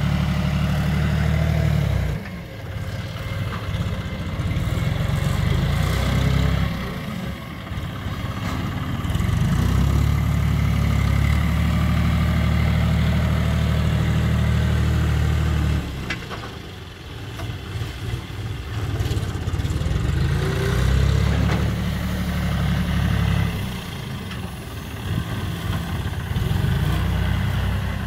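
John Deere 5310 tractor's three-cylinder diesel engine running while working a front loader, held at steady raised revs for long stretches and dropping back several times in between.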